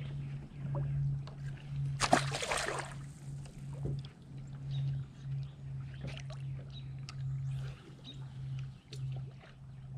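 A short splash about two seconds in, typical of a caught bass being dropped back into the lake, over a steady low hum on the boat, followed by light clicks and knocks on the deck.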